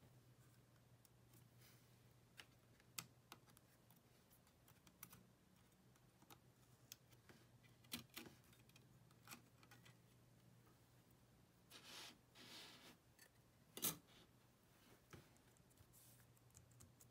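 Very quiet handling of an opened iPod touch: faint clicks and taps of a thin pry tool and fingertips on its metal and plastic parts. A short scrape comes about twelve seconds in and a sharper click just after, over a faint steady hum.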